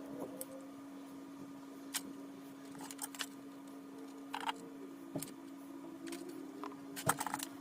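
Faint steady hum with scattered light clicks and taps, a quick run of several clicks near the end.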